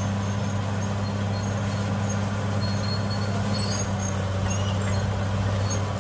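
Crawler bulldozer's diesel engine running steadily as the blade pushes a load of dirt, a constant low hum.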